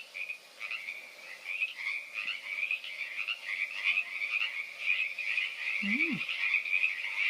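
A chorus of several frogs croaking together in a dense, continuous run of rapid calls that grows gradually louder.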